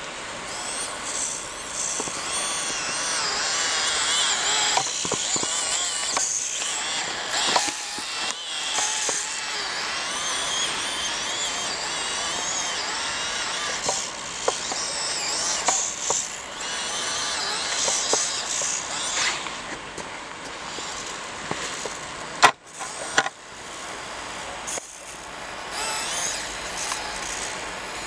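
Small electric motor and gears of a 1/24 micro crawler RC car whining as it crawls through deep snow, the pitch rising and falling with the throttle. A single sharp knock about three quarters of the way through.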